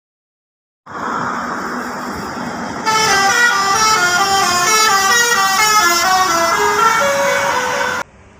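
Telolet basuri horn, a bus's multi-trumpet musical air horn, playing a quick tune of short stepped notes that ends on a longer held note and cuts off suddenly. Before the tune, for about two seconds, a steady rushing noise.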